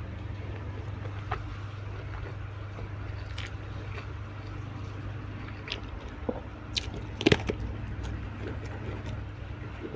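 Close-miked eating sounds: scattered crunches and wet smacks of chewing food, with a loud cluster about seven seconds in, over a steady low hum.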